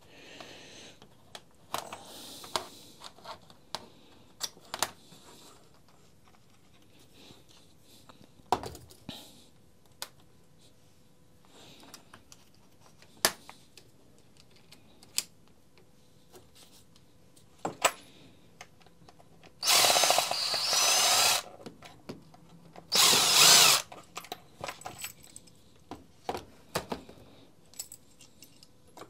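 Makita cordless impact driver running in two short bursts, the first about two seconds long and the second about one second, on the hex screws of a string trimmer's guard mount. Light clicks and clatter of small metal parts and tools being handled come before and after.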